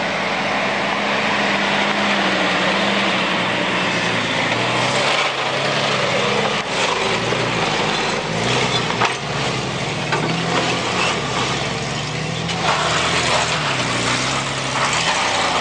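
Nissan Patrol 4x4's engine working under load as it climbs a rutted dirt track, steady at first and then rising and falling in revs, with sticks and stones cracking under the tyres.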